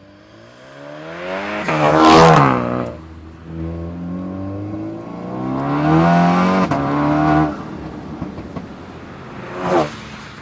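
Tuned Škoda Octavia vRS 245's turbocharged 2.0-litre four-cylinder accelerating hard on a wet road. About two seconds in, it passes close by with tyre hiss from the wet surface and its engine pitch falling away. It then climbs steadily in revs until it cuts off sharply, and a second quick pass-by with a burst of tyre hiss comes near the end.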